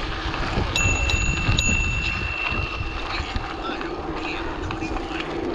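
Wind buffeting the microphone over the rumble of mountain-bike tyres rolling on a gravel trail. About a second in, a bicycle bell is struck three times in quick succession and rings on briefly, fading over a couple of seconds.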